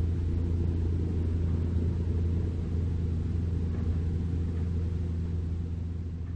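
Diesel dump truck engine running with a steady low rumble as the truck drives away on a gravel road, slowly fading near the end.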